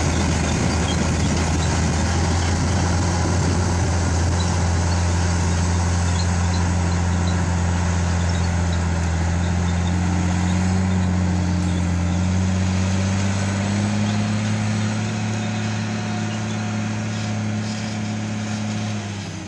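Diesel engine of a Case IH four-wheel-drive tractor running steadily under load as it tows a pair of earth scrapers. Its low drone rises slightly in pitch partway through and grows a little fainter toward the end.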